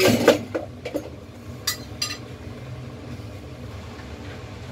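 Metal cookware clinking a few times as a wok is set down on a gas stove, with two lighter clinks about two seconds in, over a steady low hum that carries on throughout.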